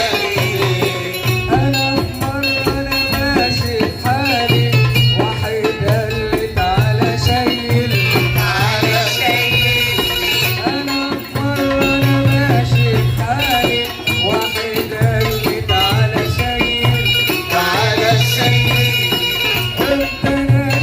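Live Egyptian simsimiyya folk music: a plucked simsimiyya lyre playing the melody over percussion with a steady, repeating beat.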